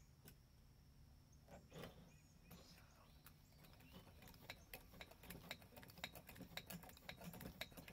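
Faint, quick clicking and ticking of small metal parts on a Coleman lantern being worked by hand, growing busier about halfway through.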